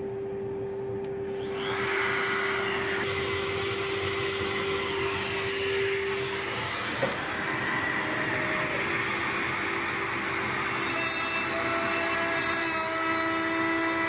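Workshop dust extractor running. About a second and a half in, the CNC router's motor comes up with a rising high whine, then runs steadily as it cuts a plywood sheet.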